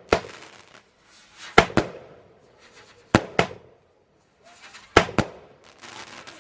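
Multi-shot aerial firework cake firing: sharp bangs, mostly in pairs, going off about every second and a half to two seconds, with hissing between them.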